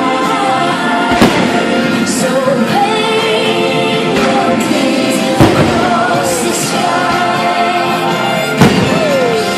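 Loud music with singing, the fireworks show's soundtrack, playing over loudspeakers, with three sharp firework bangs cutting through it: about a second in, near the middle and near the end.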